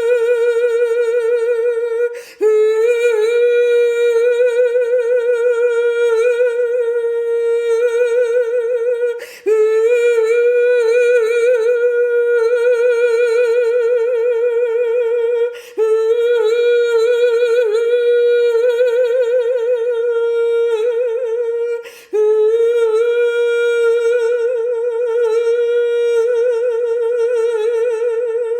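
A woman's unaccompanied wordless singing, close to humming: long notes held on one steady pitch with a wavering vibrato. A quick breath breaks the tone about every six or seven seconds.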